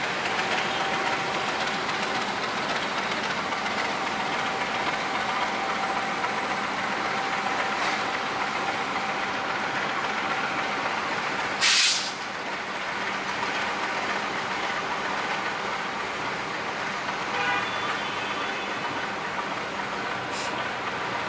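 KA Menoreh economy-class passenger coaches rolling slowly past on the rails as the train slows to stop at the station, a steady rumble of wheels on track. About halfway through, one short, loud hiss cuts in for under half a second.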